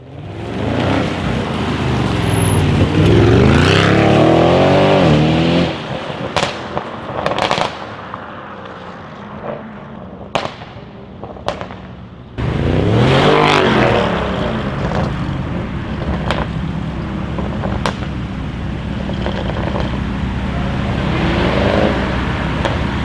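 Audi RS6 C7's twin-turbo V8 through a Milltek exhaust: revving hard with the pitch climbing and falling, then sharp exhaust crackles and pops while it drops back. About twelve seconds in it cuts in loud with a hard acceleration and then keeps running steadily.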